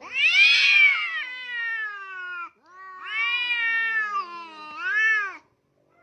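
A cat meowing loudly in three drawn-out calls: two long meows that slide down in pitch, then a shorter one that rises and falls.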